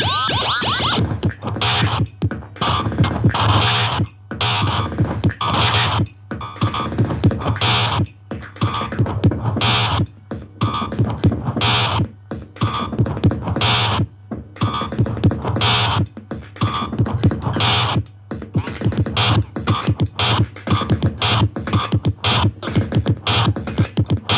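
Electronic noise music: chopped, stuttering bursts of noisy synthesizer sound that start and cut off sharply many times a second, over a sustained low drone.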